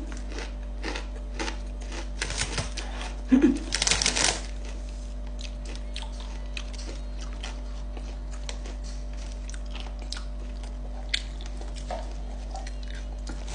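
Crunching of Doritos tortilla chips being chewed: an irregular run of crisp crackles and clicks, with a louder, denser burst of crunching about three and a half seconds in.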